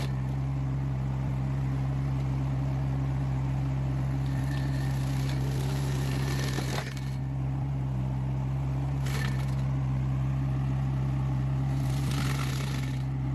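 The Yanmar three-cylinder diesel engine of a mini skid steer loader runs steadily under load while its forestry mulcher chews into a thick tree. There are bursts of crackling and crushing wood a few seconds in, again about nine seconds in, and near the end.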